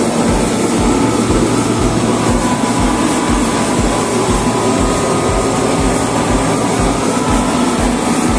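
Kangsaisi rotary screw air compressor running, a loud steady machine hum with a regular low throb about two to three times a second.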